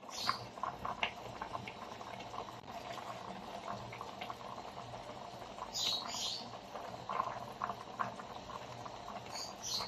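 Fish and vegetable broth simmering in a pan: steady bubbling with many small pops, and a couple of brief hissy bursts near the middle and near the end.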